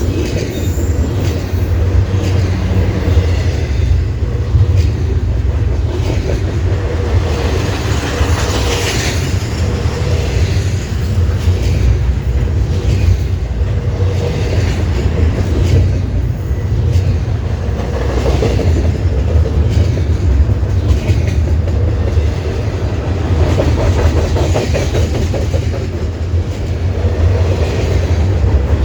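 Freight train cars rolling past at speed: a steady heavy rumble with wheels clicking and clattering over the rails.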